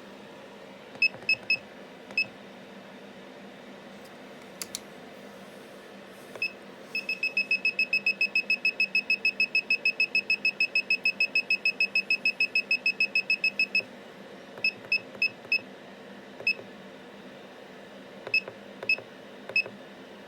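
Short electronic beeps over a steady low machine hum. First a few single beeps, then from about a third of the way in a rapid even run of about six beeps a second for roughly seven seconds, then scattered single beeps again.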